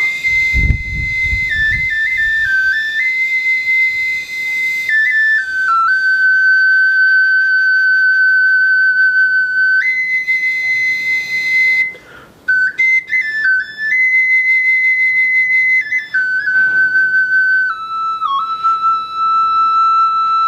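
A Tezcatlipoca-style flute with a turkey (guajolote) effigy being played: a bright, whistle-like high tone that steps between a few notes, held long and slurred in phrases, with a short breath gap about twelve seconds in. A low thump sounds in the first second.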